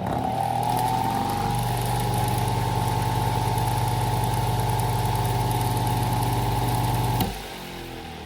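Vintage Zero table fan's single-speed electric motor coming up to speed with a rising whir, then running with a steady hum. About seven seconds in it is switched off with a click, and the whir falls as the blades spin down.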